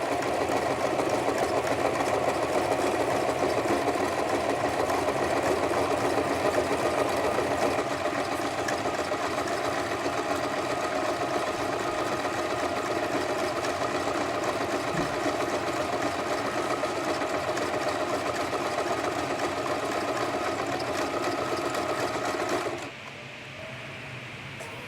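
Sewing machine running steadily at speed, stitching two hair weft tracks together into one doubled track; it stops near the end.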